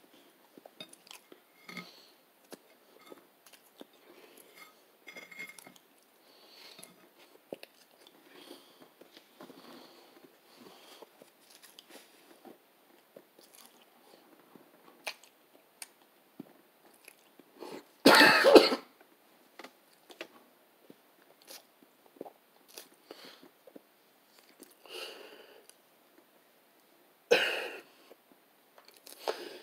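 A man chewing food with small wet mouth clicks, then coughing loudly about two-thirds of the way through and again near the end, as if he nearly choked on a bite.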